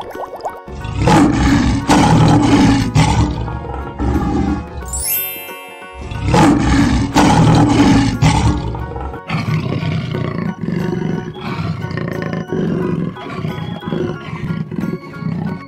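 Two long big-cat roars, the first about a second in and the second about six seconds in, over background music, with a short rising tone between them.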